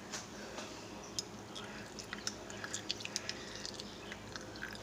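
Faint, sticky clicks and smacks from a lump of microwaved gummy candy that has melted and is hardening into a tacky, toffee-like mass, scattered irregularly and thickest in the middle of the stretch.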